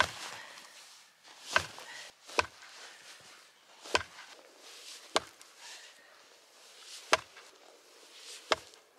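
Hand hammer striking rock to chip out a mineral vein: seven sharp blows at uneven intervals, about one every second or so.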